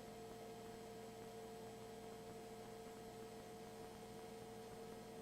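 Faint steady electrical hum with a few constant tones over low hiss: the background of the radio or audio feed between transmissions, with no other sound.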